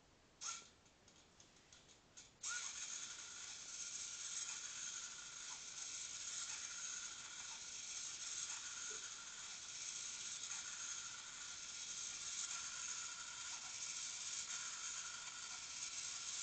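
A click and a few faint ticks, then about two and a half seconds in a small motor-driven flag-waving mechanism starts running steadily: a hissy mechanical whir with a thin high tone and faint ticks now and then.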